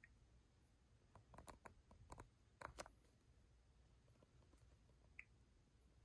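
Near silence: room tone with a scattering of faint clicks one to three seconds in, and a single short high chirp near the end.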